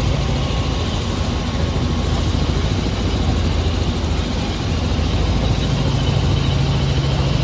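Helicopter engine and rotor running steadily, heard from inside the cabin as a loud, even drone with a low hum that grows stronger near the end.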